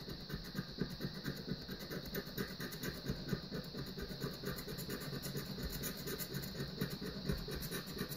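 Metal knife blade scraping the scratch-off coating from a paper instant lottery ticket, in quick, rhythmic back-and-forth strokes.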